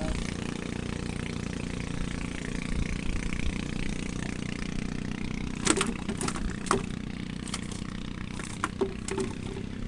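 Small engine running steadily at an even speed, with a handful of sharp clicks or knocks in the second half.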